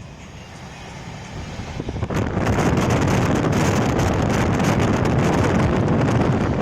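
Running noise of a moving train with wind buffeting the microphone: a low steady rumble that jumps about two seconds in to a loud, rushing, fluttering roar of wind and wheels.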